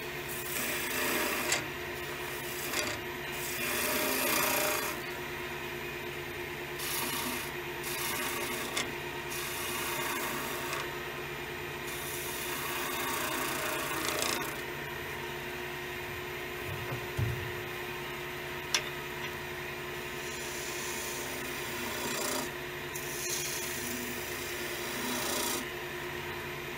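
Wood lathe running with a steady hum while a skew chisel cuts the spinning willow vase blank in repeated passes, each pass a scraping hiss as shavings peel off.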